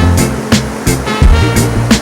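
Instrumental reggae music: a deep bass line under a steady drum beat of about three hits a second, with no singing.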